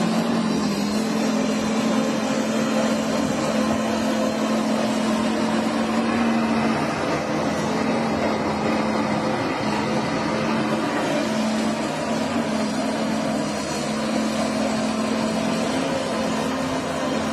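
Diesel engine of an XCMG XE215BR crawler excavator running steadily at working speed while it digs and dumps soil, a constant drone with no breaks.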